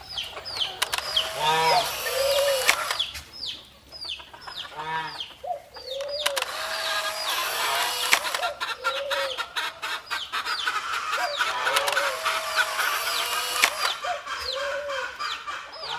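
Chickens clucking, with a constant run of quick high peeps over repeated lower clucks.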